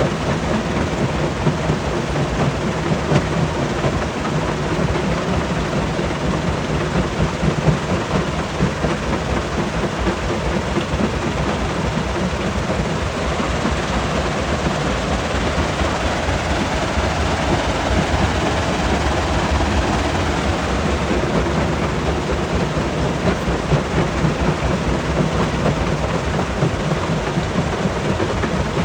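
Large stone crusher running while crushing rock: a steady low rumble with a dense, continuous rattle and clatter of stone.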